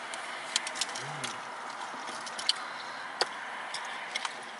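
Scattered sharp clicks and crinkles of a plastic water bottle and aluminium foil being handled, over a steady background hiss.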